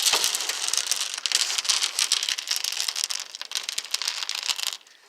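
Dense crinkling and crackling with many small clicks, stopping abruptly near the end.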